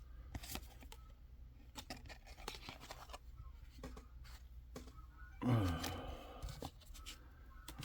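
Faint crinkling and tearing of a foil booster-pack wrapper and trading cards being handled, in scattered short clicks and rustles. A brief murmured voice falls in pitch about five and a half seconds in.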